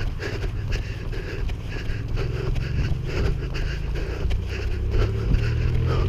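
Low rumble of wind buffeting a body-worn microphone during a run, with the runner's footfalls thudding in a steady rhythm of about three a second.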